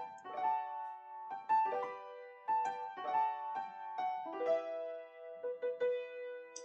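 Background music: a melody on a piano-like keyboard, single notes struck about every half second and left to ring.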